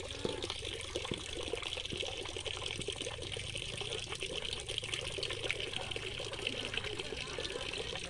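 A thin stream of water pouring from a pipe into a partly filled concrete tank, splashing steadily.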